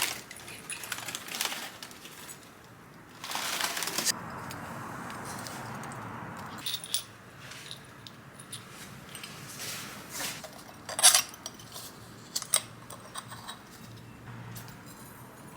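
Ceramic dishes and glassware clinking and tapping as they are unpacked, a scatter of sharp, ringing clinks with the loudest about eleven seconds in. Packaging rustles in the first few seconds.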